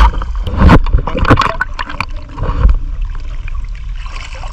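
Shallow sea water splashing and sloshing around an action camera held at the surface, with a low rumble on the microphone. Several sharp splashes come close together in the first second and a half, then it settles to a quieter, steady wash.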